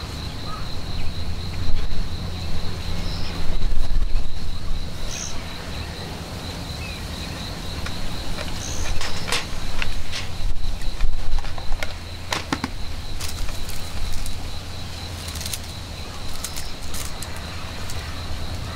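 Outdoor ambience: a steady, finely pulsing high insect trill over a low, uneven rumble that swells several times, with scattered short clicks.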